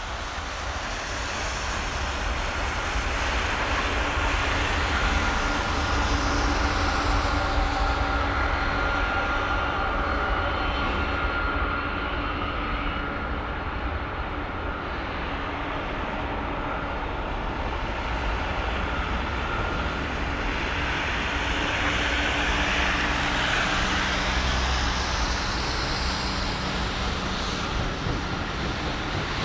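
Jet engines of a four-engine Boeing 747-400 airliner on final approach, heard from afar: a steady roar with a faint high whine over a low rumble, swelling in over the first few seconds.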